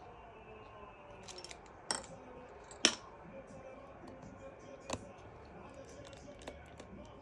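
Small, sharp metallic clicks and ticks of a precision screwdriver working the tiny screws inside an opened MacBook Air, a few at a time, with the three clearest about two, three and five seconds in.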